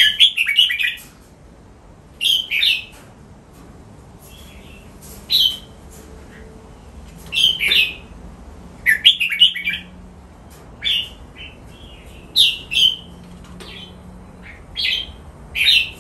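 Red-whiskered bulbul singing: short, quick, warbled phrases repeated about nine times, with a pause of a second or two between them.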